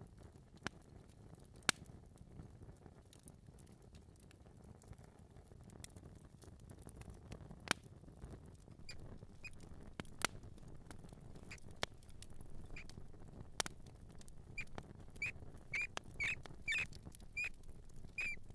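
A mouse squeaking in short, high chirps, most of them bunched together near the end, among scattered sharp ticks.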